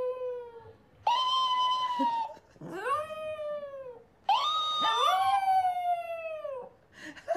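A chihuahua howling: a string of about four long howls, each held and then sliding down in pitch at its end.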